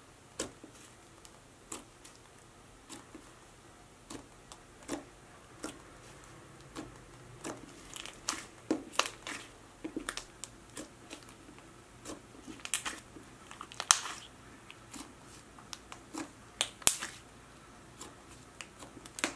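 Fingers pressing, folding and squeezing a thick slime, giving soft, irregular sticky clicks and small crackling pops.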